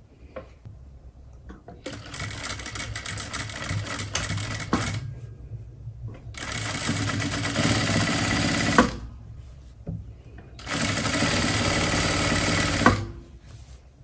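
Sewing machine stitching in three runs of a few seconds each, with short pauses between; the second and third runs end with a sharp click. It is running the line of topstitching that fixes the zipper fly of a pair of trousers.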